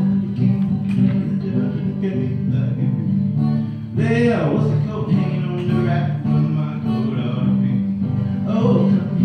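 A man singing to his own acoustic guitar accompaniment; the guitar plays throughout, and the voice is strongest around four to five seconds in and again near the end.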